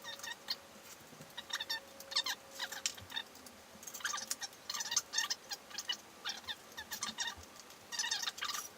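Rubber handlebar grip squeaking in short, irregular bursts as it is twisted and worked off the bar.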